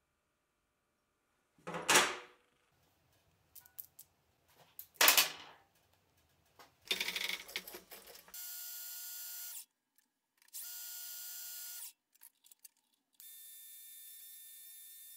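Two loud metal clanks a few seconds apart, then a metal lathe with a three-jaw chuck running with a steady whine: two short spells, then steadily from near the end.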